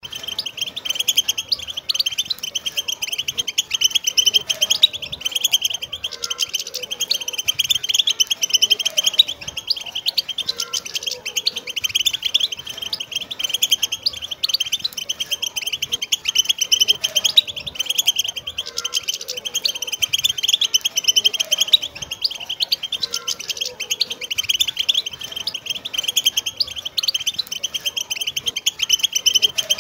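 A flock of wild European goldfinches chattering together: a dense, continuous stream of quick, high twittering calls.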